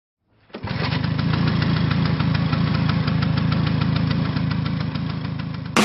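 Two-stroke engine starting up and running steadily with the rapid 'treng teng teng' firing, cut off suddenly near the end.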